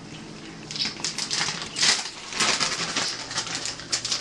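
Plastic bag of shredded mozzarella crinkling and rustling as it is handled, a dense run of irregular crackles starting about a second in.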